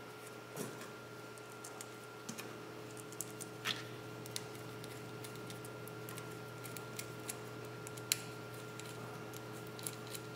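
Scattered light metallic clicks and ticks of small socket head cap screws and a metal set screw hub being handled and the screws set into the hub by hand, over a faint steady hum.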